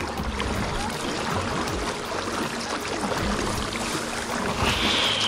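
Kayak paddle strokes splashing and creek water rushing over a shallow riffle around the hull. A high steady buzz comes in near the end.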